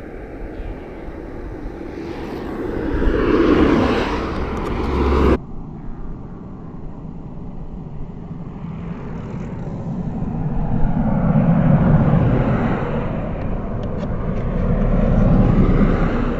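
Wind and road noise picked up by a handlebar-mounted action camera on a moving road bike, a rushing noise that swells and fades several times. About five seconds in, the higher part of the noise cuts off suddenly.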